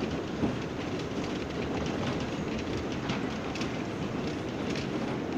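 R179 subway car running at speed between stations, heard from inside the car: a steady rumble of steel wheels on rail with frequent clicks as the wheels cross rail joints.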